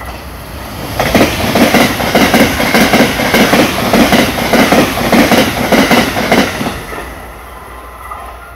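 JR West 683 series limited express electric train running through the station at speed. A loud, rapid clickety-clack of wheels over the rail joints and a rush of noise set in about a second in and die away after about six seconds.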